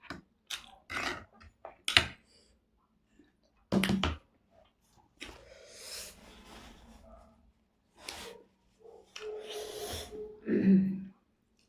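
Close-miked mouth sounds of eating: a quick series of wet smacks and bites, then longer slurping sounds, ending with a brief hummed "mm" near the end.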